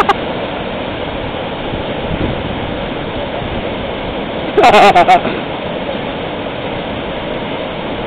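Steady rushing of whitewater river rapids. About halfway through, a person's voice calls out loudly for about half a second.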